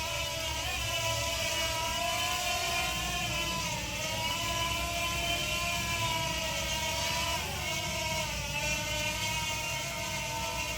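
JJRC JJ850 toy quadcopter's motors and propellers whining, a steady multi-tone hum over a low rumble. The pitch dips briefly and comes back up about four seconds in and again past seven seconds.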